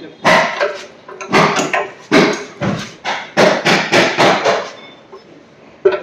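A dog barking repeatedly, about eight barks in a row, followed by a short sharp knock near the end.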